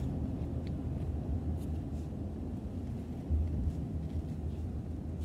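Steady low rumble of a car on the move, heard from inside the cabin, with a few faint light clicks.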